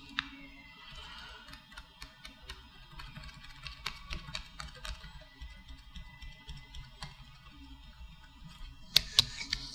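Lock nut being screwed down by hand onto the threaded stem of a rebreather scrubber cartridge's spring-loaded compression assembly: scattered light clicks and ticks, with a few sharper knocks about nine seconds in. Faint background music runs underneath.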